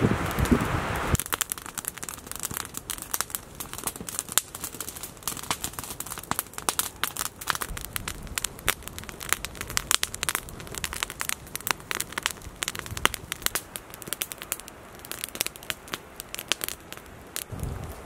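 Campfire of dry sticks burning briskly, crackling with many sharp, irregular snaps and pops over a soft hiss of flame. A noisy rustle comes first, stopping about a second in.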